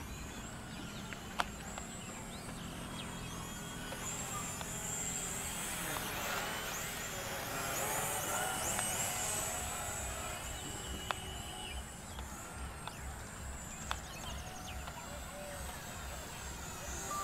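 Faint outdoor ambience: a steady low rumble with scattered short high chirps and a few sharp clicks.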